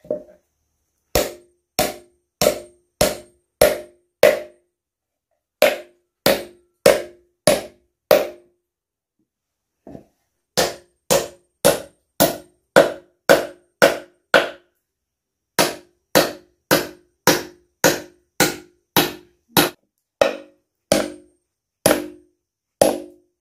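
Claw hammer driving nails into a wooden stool, steady blows about one and a half a second in runs of five to a dozen with short pauses between. Each blow rings briefly.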